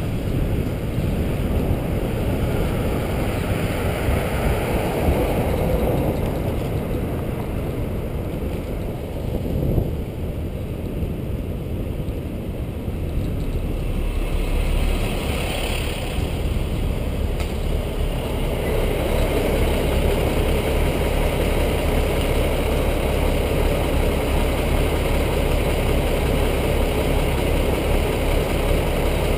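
City traffic heard from a cyclist's helmet camera: a steady rumble of car and truck engines and road noise. In the last third it settles into a steadier engine idling hum.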